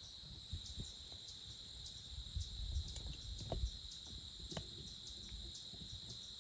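Crickets chirring in a steady high-pitched chorus, with scattered low thumps and a few faint clicks.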